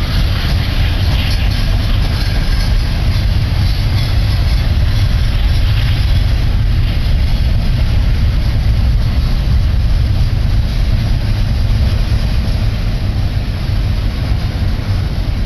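Double-stack container train's well cars rolling past close by, steel wheels on rail making a steady low rumble.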